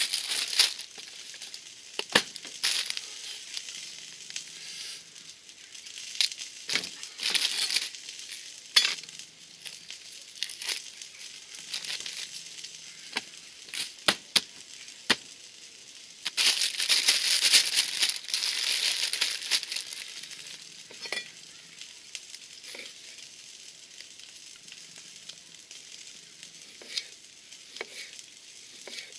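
Sausages frying in oil with a steady sizzle, under sharp knocks and taps of a knife and food on a wooden chopping board. A few seconds of louder rustling come a little past halfway.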